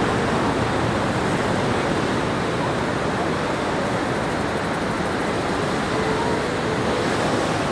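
Ocean surf breaking and washing up a sandy beach, a steady rush.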